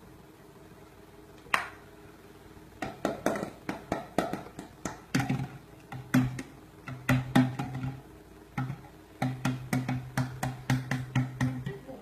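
A tin can knocked and rolled by hand over a slatted bamboo mat: a run of irregular clattering knocks starting about a second and a half in, with a low steady hum in stretches between them.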